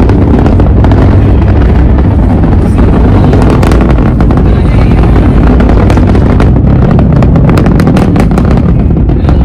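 Falcon 9 rocket's nine Merlin engines in ascent: a loud, steady low rumble with bouts of sharp crackling about a third of the way in and again through the second half.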